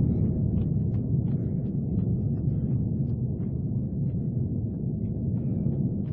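Sounder commuter train riding along the rails, heard from inside the cab car: a steady low rumble with scattered light clicks.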